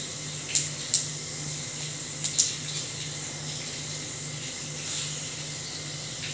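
Panch phoron (whole five-spice seeds) sizzling in hot oil in a cast-iron kadhai: a steady fine hiss with a few sharp pops and crackles in the first couple of seconds.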